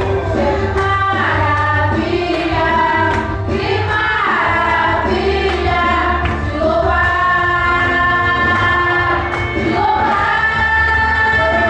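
A choir singing with musical accompaniment, with held notes and gliding vocal lines over a steady low bass.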